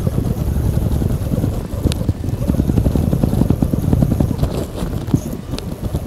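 Dense, low, irregular rumbling of wind and handling noise on the body-worn camera's microphone while a conventional fishing reel is cranked against a fish, with a couple of short sharp clicks.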